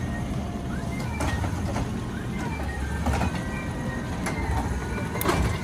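Steady low garbage-truck engine rumble with short whining rises and falls above it, and a few light clicks.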